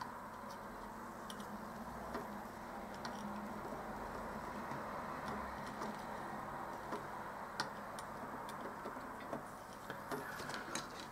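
Hand-soldering capacitor leads onto a circuit board: scattered faint ticks and small clicks at irregular intervals over a low steady hiss and hum.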